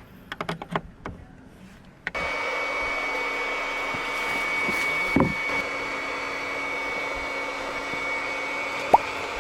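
A few light clicks and knocks, then a small electric motor that starts abruptly about two seconds in and runs steadily with a whine, with a thump midway and a sharp click near the end.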